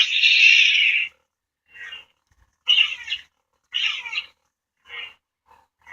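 Force Link bracelet's small speaker playing short electronic sound effects: a loud, noisy burst about a second long, then a string of short blips.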